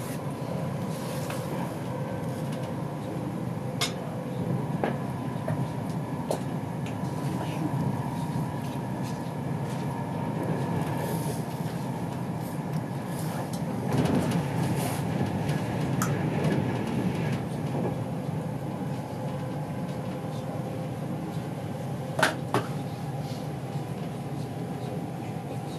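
Interior running noise of an InterCity 225 Mark 4 passenger coach: a steady low rumble of wheels on rail, with a few sharp knocks, the loudest near the end.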